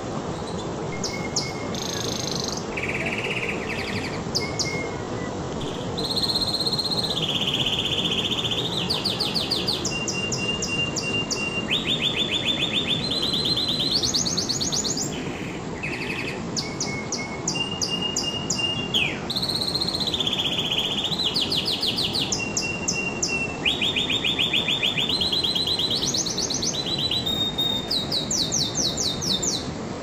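Domestic canary singing a continuous song of fast trills, each run of repeated notes lasting a second or two before switching to a higher or lower run, with a few short held whistles between, over a steady low hiss.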